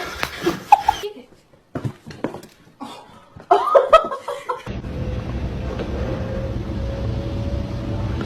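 People laughing and chuckling in short bursts. A little past halfway a steady low drone sets in.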